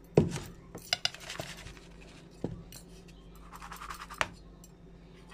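Metal bowl being handled and shifted on a tray: a sharp knock just after the start, then scraping and a few lighter knocks, the last about four seconds in.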